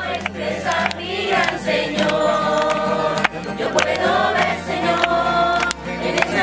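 Music: a group of voices singing a worship song in chorus over instrumental backing with held bass notes.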